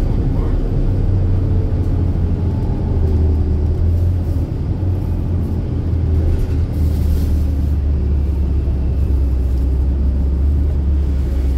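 City bus in motion, heard from inside the cabin: a steady low engine and road rumble.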